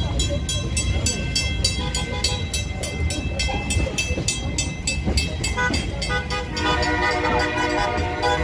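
Passenger train rumbling along the track with a regular clicking about four times a second. About six and a half seconds in, the train horn starts to sound, a steady chord held through the end.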